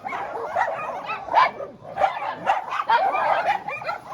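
A group of dogs barking and yipping over one another, many short calls overlapping without a break, as the dogs squabble.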